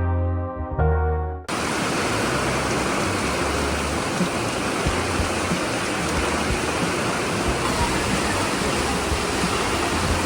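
Piano-like background music that cuts off abruptly about a second and a half in, giving way to a loud, steady rush of water, with the music's low notes still faintly under it.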